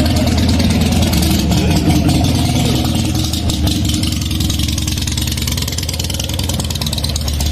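Car engine running steadily, a low rumble that eases a little in the middle.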